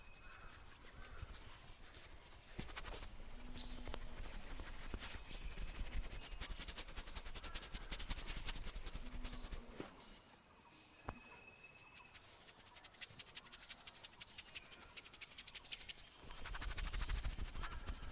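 Hands tapping and patting quickly on a head during a head massage, a fast, even clatter of light strikes. It comes in two spells, with a pause between them that holds one lone sharp click.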